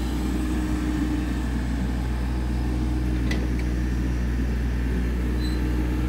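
An engine running steadily at an even speed, a low drone with a held hum above it, and a faint click a little past three seconds in.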